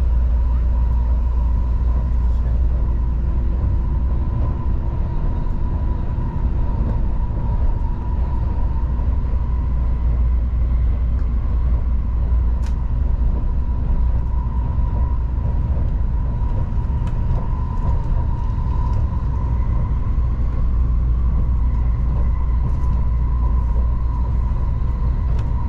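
Interior running noise of an N700-series Tokaido Shinkansen car at speed: a steady heavy low rumble with a constant high hum running through it.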